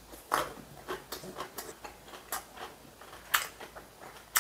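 A person chewing a mouthful of food close to the microphone: irregular wet clicks and smacks of the mouth, the strongest about half a second in and again near the end.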